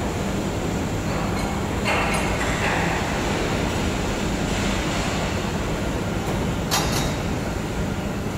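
Steady rumble of running factory machinery with a constant low hum, broken by short hisses about two seconds in and near seven seconds.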